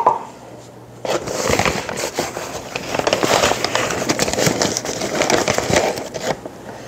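Paper flour bag rustling and crinkling as flour is scooped out of it by hand. The crackling starts about a second in and stops shortly before the end.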